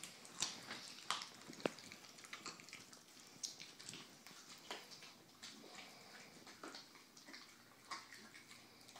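A dog chewing a chicken leg and thigh: faint, wet, irregular chewing with many small clicks and a few sharper snaps.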